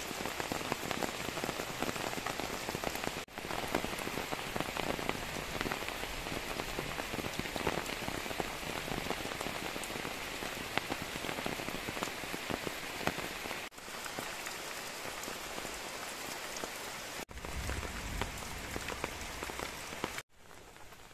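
Steady rain falling, a dense patter of drops on surfaces. It breaks off briefly a few times and turns much quieter near the end.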